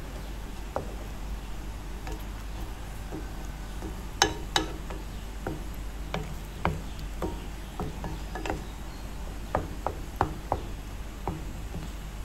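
A wooden spatula tapping and scraping against a nonstick frying pan while breaking up eggs in canned sardines and tomato sauce: irregular sharp knocks, a dozen or so, mostly from about four seconds in, over a steady low hiss.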